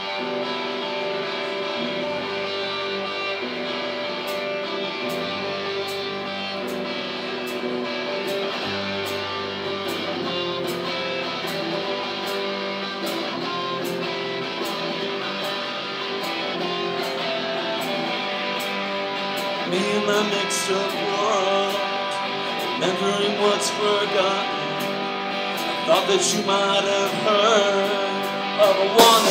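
Live rock band playing an instrumental passage: strummed acoustic and electric guitars over bass guitar, with a light steady tick on top. From about two-thirds of the way in a guitar line with bending notes grows louder, and the full drum kit comes crashing in at the very end.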